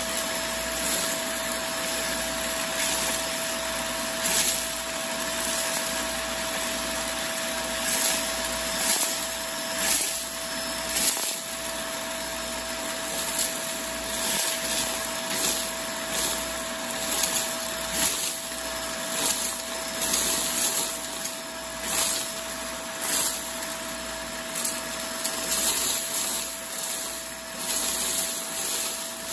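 Bagless upright vacuum cleaner running with the hose in use, a steady motor whine underneath. Short rattling rushes come again and again as debris is sucked up the hose into the dust bin, coming more often in the second half.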